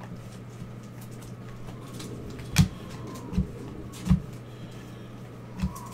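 Handling noise from a stack of trading cards being flipped through by gloved hands: four dull thumps and knocks in the second half, the first the loudest, over a steady low hum.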